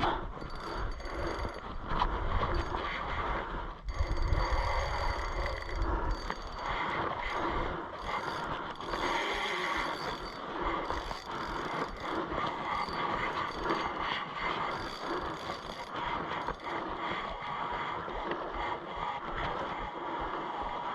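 Fishing reel being cranked steadily, its gears whirring and clicking as line is wound in.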